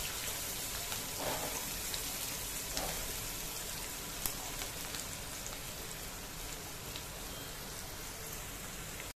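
Chopped onions, green chillies and curry leaves sizzling steadily in hot oil in a non-stick kadhai as the onions fry toward light golden, with a silicone spatula scraping through them a few times in the first three seconds.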